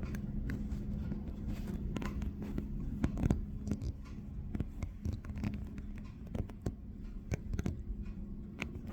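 Distant helicopter giving a steady low hum as it climbs, under frequent irregular scratching and rubbing noises close to the microphone.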